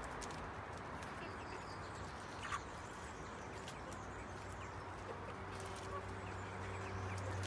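Backyard chickens moving about, with soft scattered clicks and one short high call about two and a half seconds in. A low steady hum comes in after about five seconds.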